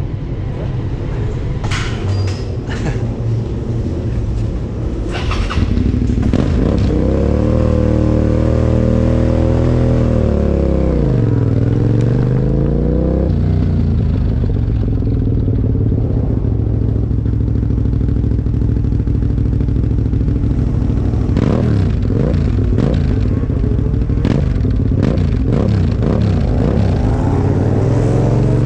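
Suzuki SV650 V-twin motorcycle engine running, with a few clicks in the first seconds; about seven seconds in it is revved up, held, and drops back, then runs steadily. The owner reports the engine as misfiring.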